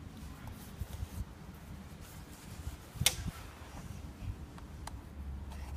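Quiet hand-handling sounds at the engine bay, with one sharp click about three seconds in and a few light ticks. A low hum comes in near the end.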